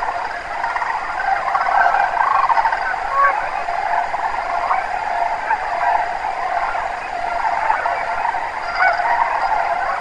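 A large flock of sandhill cranes calling together, many overlapping calls merging into a dense, unbroken chorus.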